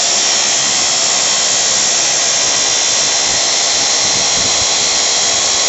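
Steady loud hiss with a faint high whine, even and unbroken.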